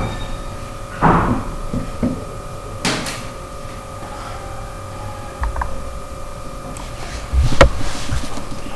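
A paper airplane being folded: a few crisp rustles and creases of the paper and a heavier knock near the end, over a faint steady hum.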